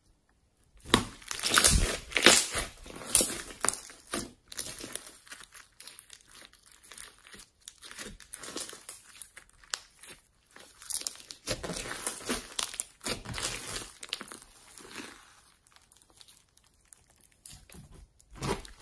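Slime being squished and stretched by hand, making dense crackling, clicking squelches. It starts about a second in, is loudest in the first few seconds and again past the middle, and eases off near the end.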